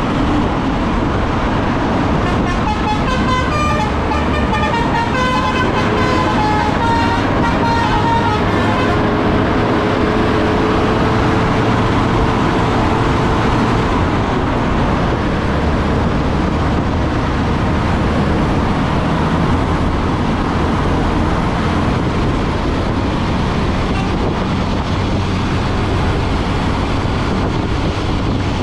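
Bus "telolet" Basuri musical horn playing a quick tune of changing notes for several seconds, then one held tone for a few seconds, over the steady running noise of the bus.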